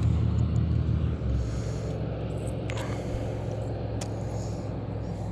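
Low, steady engine rumble, louder for the first second and then settling, with a few light clicks over it.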